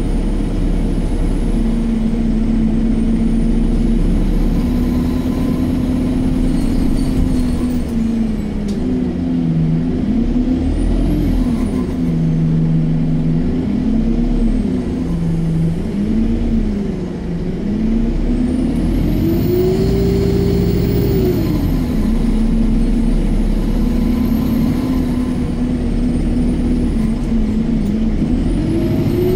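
Alexander Dennis Enviro 200 MMC single-deck bus heard from inside the passenger cabin while driving, its engine note rising and falling in pitch several times as the bus speeds up and slows. A faint high whine rises and falls with it.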